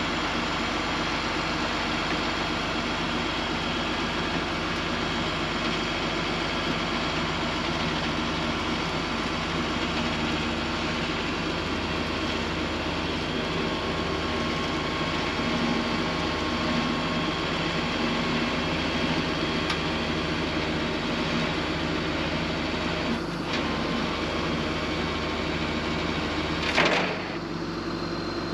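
Rollback tow truck's engine idling steadily while a Ford Bronco is let down off its tilted bed, with one sharp clack near the end.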